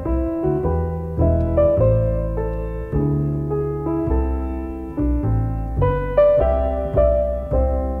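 Background piano music: a melody over low bass notes, each note struck and fading.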